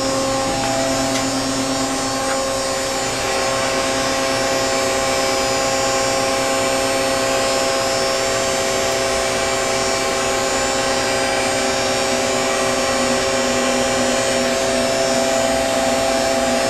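Steady hum of a powered-up CNC horizontal machining center (Okuma & Howa Millac 630H) standing idle with its spindle not running: several steady tones over a constant mechanical drone.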